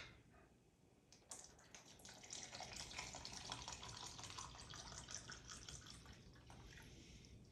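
Liquid faintly pouring and trickling into a container, starting about a second in after a small click, and fading near the end.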